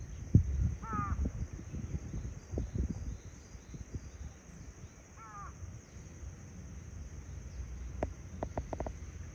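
Lidth's jay giving a short harsh rattling call twice, about four seconds apart, each a quick run of falling notes. Low thumps, the loudest just under half a second in, sound through the first three seconds, and a few sharp clicks come near the end, over a steady high buzz.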